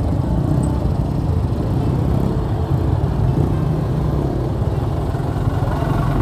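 Motorcycle engine running steadily on the move, under a heavy low rumble of strong wind buffeting the microphone.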